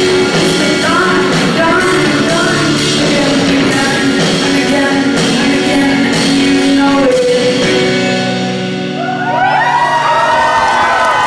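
Live band music with a woman singing, heard from the audience in a music hall. About nine seconds in the song ends and the crowd breaks into cheering and whoops.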